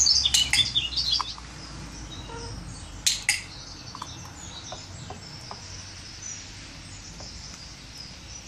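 Small birds chirping, loudest in the first second, with a training clicker's sharp double click about three seconds in that marks the hen's look at the target ball and signals a mealworm treat.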